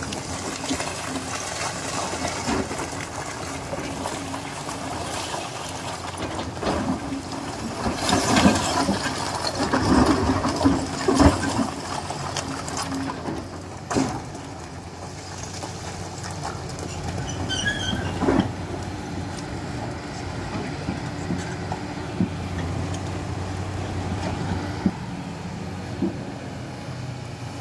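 Hydraulic excavator running steadily, with a run of knocks and clanks about a third of the way through and a few single knocks after.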